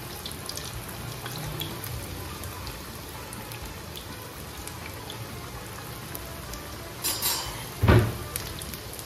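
Chicken tikka box patties deep-frying in hot oil in a wok, a steady sizzle with fine crackles and pops. About seven seconds in comes a short burst of noise, then a loud thump, the loudest sound.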